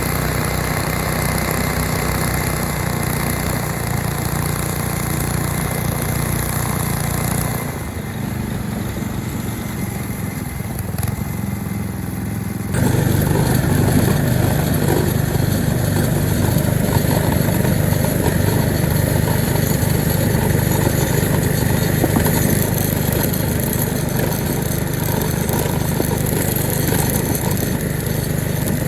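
Small engine of a homemade snowdog-style track sled running steadily. It eases off slightly about a third of the way in, then comes back sharply louder a little before halfway and stays there.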